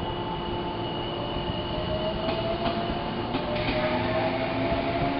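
A JR 185 series electric multiple unit pulling away from the platform. Its traction motors whine, rising steadily in pitch as the train gathers speed, with a few sharp clicks along the way.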